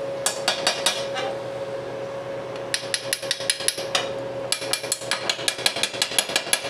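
Slag chipping hammer tapping on a fresh stick weld on thin steel angle, knocking the slag off: scattered taps at first, a cluster a bit before the middle, then a fast steady run of about five taps a second over the last two seconds. A steady hum sounds underneath.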